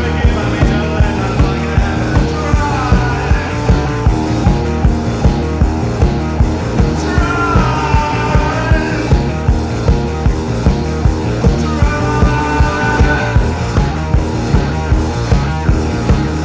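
Early-1980s rock band recording playing with a steady beat, the full band running throughout.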